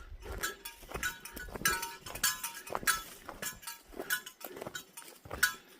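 A small metal object clinking and jingling in an irregular rhythm, two or three short ringing clinks a second, in time with a hiker's walking steps.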